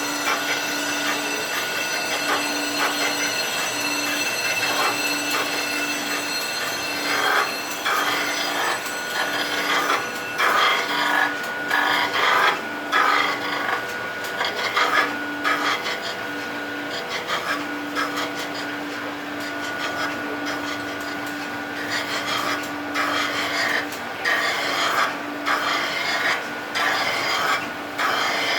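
A hand tool rasping against metal in repeated, irregular strokes, typical of cleaning a surface by hand during engine work.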